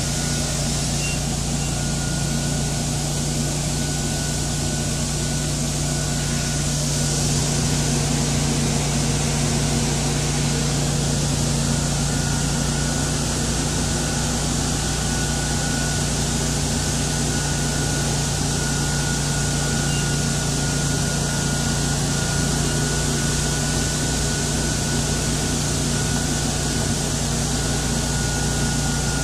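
Buffalo Turbine Cyclone gas-powered industrial leaf blower running steadily at full power: a loud engine drone with a thin high whine over a heavy rush of air, blowing leaves out of a roadside ditch.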